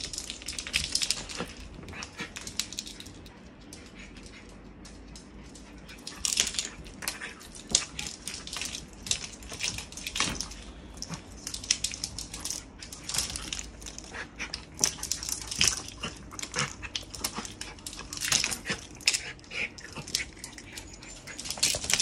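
Miniature schnauzer's claws clicking and scrabbling on a wooden floor in quick, irregular taps. The taps go quieter for a few seconds after about two seconds in.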